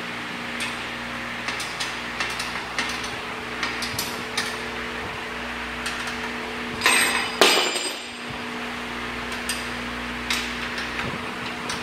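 Wrench clinking and ticking against the steel housing of a corn milling machine as its bolts are tightened, with two louder metal clanks about seven seconds in. A steady low hum runs underneath.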